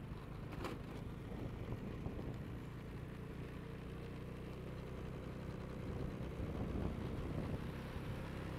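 A vehicle's engine running steadily with tyre and road noise, heard from the moving vehicle itself. One brief click comes about half a second in.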